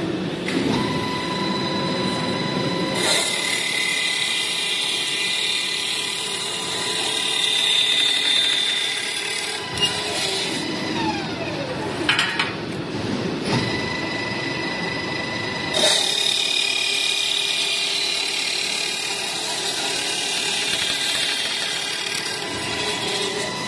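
Automatic CNC circular cold saw cutting square steel tube. Its blade makes a high, ringing cutting sound twice, starting about three seconds in and again about sixteen seconds in, with a few sharp clanks in the pause between cuts as the machine clamps, feeds and drops the cut piece.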